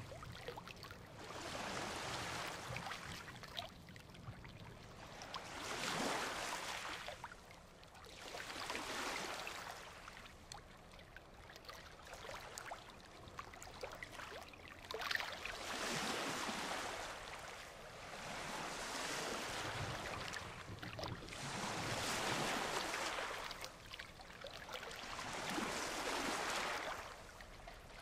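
Ocean surf: waves breaking and washing up the beach, the roar swelling and fading every few seconds.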